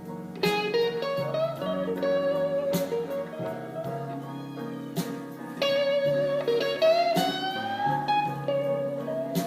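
Recorded blues music played back through a Mitsubishi DA-U12 stereo amplifier: a lead electric guitar bends its notes up and down over sustained backing chords.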